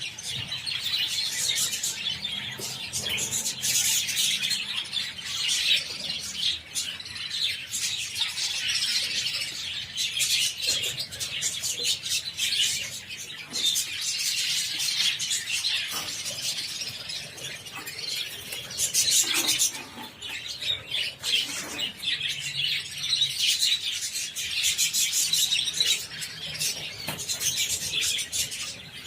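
A flock of budgerigars chattering and chirping, many birds at once without a break.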